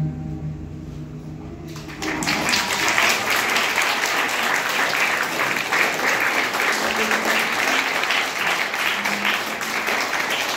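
The final held note of the tango music fades out, and about two seconds in the audience breaks into steady applause that carries on.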